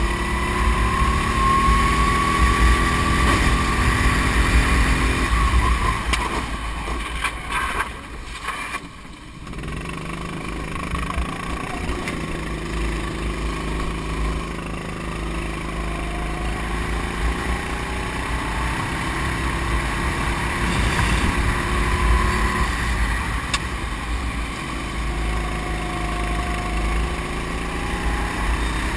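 Go-kart engine heard from onboard at racing speed, its pitch climbing and falling through the corners; about eight seconds in the engine note drops away briefly as the kart slows, then pulls again. A heavy low wind rumble runs under it.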